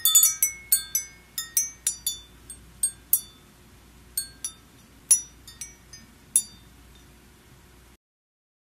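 A run of bright, ringing clinks like small chimes, close together at first and then spaced out, cutting off about eight seconds in.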